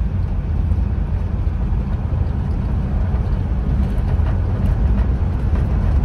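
A 1954 Chevrolet driving, heard from inside the cabin: a steady low rumble of engine and road noise.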